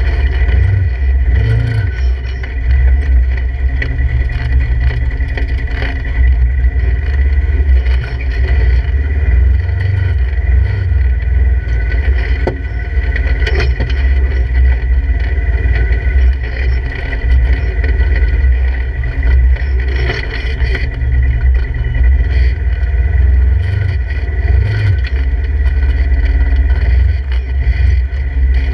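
Polaris RZR 1000 side-by-side's parallel-twin engine running at low, varying speed while crawling over rocks, heard from inside the open cab. A few sharp knocks in the middle of the passage.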